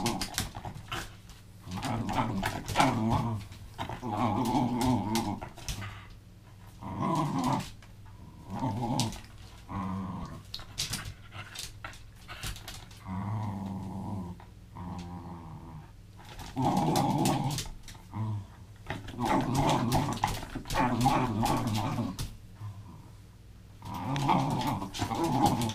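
Welsh terrier growling in repeated bouts of a second or two, with short pauses between, as it tugs and shakes a rope toy: play growling in a game of tug-of-war.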